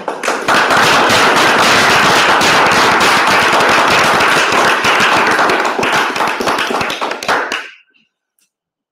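Audience applauding, many hands clapping densely, dying away near the end.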